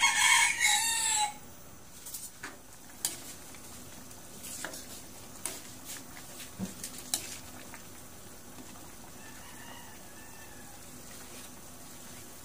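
A rooster crows loudly once, for about a second and a half, at the start. After that a metal ladle gives a few short clinks against the pan while the soup is stirred.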